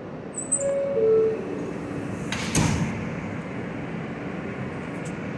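R160 subway car's door-closing chime, two falling notes, then the sliding doors thud shut about two and a half seconds in. The train's steady running noise follows as it starts to pull out.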